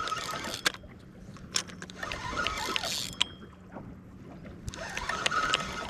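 A fishing reel cranked in three short spells, each with a whirring whine, with sharp clicks from handling the rod and reel. The boat's motor hums steadily underneath while a fish is reeled in.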